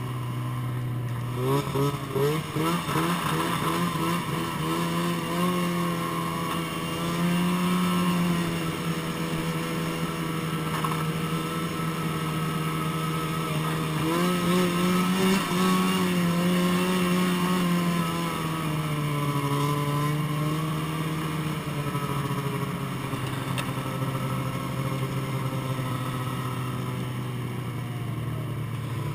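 Snowmobile engine idling briefly, then pulling away about a second and a half in and running at speed, its pitch rising and falling as the throttle is worked, and settling back down near the end as the sled slows.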